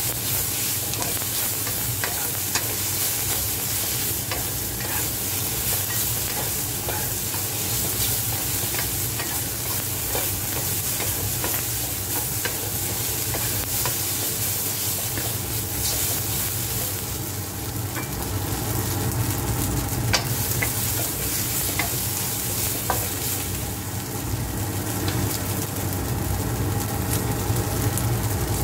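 Celery, tofu and carrot strips sizzling in a hot nonstick wok as a wooden spatula stirs and tosses them, with scattered light clicks of the spatula against the pan over a steady low hum.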